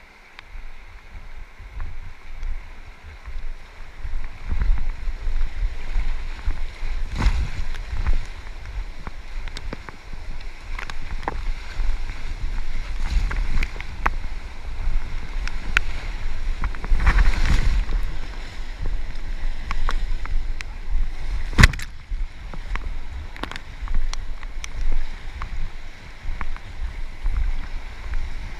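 River water rushing and splashing around a kayak, with wind buffeting the microphone. Irregular splashes come through, and a sharp knock sounds about 22 seconds in.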